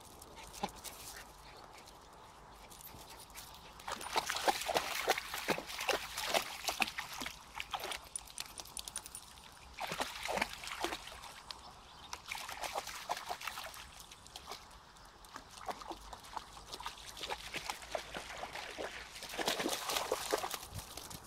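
Two small dogs splashing and sloshing as they wade through shallow river water, in spurts of several seconds, with the click of paws on stone paving.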